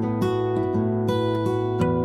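Background music: acoustic guitar plucked and strummed, changing notes about every half second.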